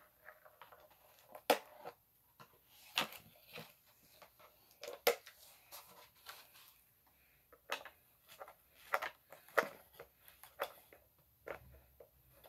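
Scissors cutting into a cardboard box in irregular snips and crunches, with the cardboard rustling as it is handled. The cardboard is hard to cut.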